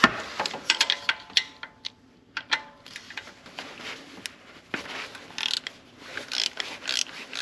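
Ratchet wrench with an E12 socket clicking in short runs on the belt tensioner bolt of a BMW N55 engine as the bolt is broken loose.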